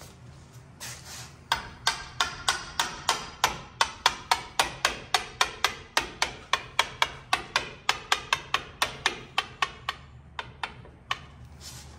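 Hand hammer tapping on a metal brake caliper, driving in the brake pad retaining pin: a quick, even run of sharp metallic taps, about four a second, followed by a few slower taps near the end.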